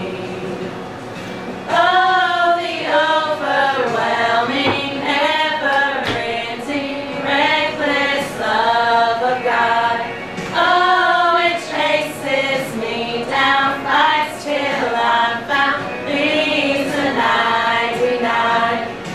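A small group of women singing together, a soft held passage at first, then the voices coming in louder about two seconds in.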